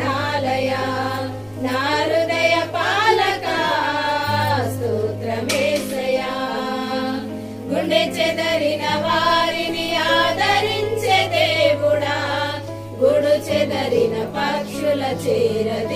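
A small group of women singing a Telugu Christian hymn in unison, with sustained low accompaniment notes that change every few seconds.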